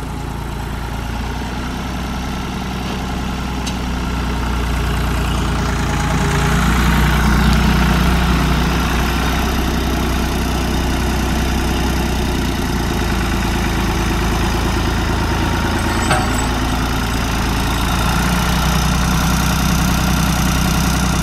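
1988 Ford 4610 tractor's three-cylinder engine running steadily at low speed as the tractor drives. It grows louder about a third of the way in as the tractor comes close, then holds steady. A short click comes near the three-quarter mark.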